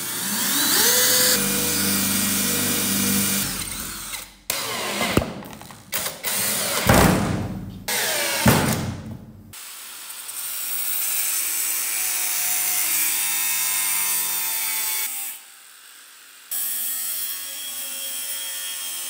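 Cordless drill spinning up with a rising whine and drilling through a thin metal bracket, followed by a stretch of short tool bursts and knocks. Then an angle grinder runs steadily, cutting into a steel circular saw blade; it stops for about a second and starts cutting again.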